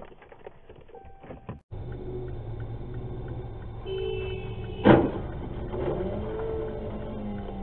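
A car crash, an SUV striking the front of a sedan: one sharp, loud bang about five seconds in, over a steady low hum of traffic.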